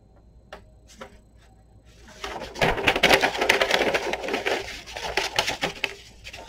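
Large sheets of old blueprint paper being handled, with a few light taps at first, then about two seconds in a dense crackling rustle as a sheet is lifted and turned over, tailing off near the end.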